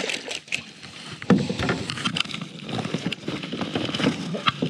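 A large snakehead thrashing and splashing in a landing net at the side of a kayak, with sharp knocks as the net is hauled in; the loudest knock comes about a second in.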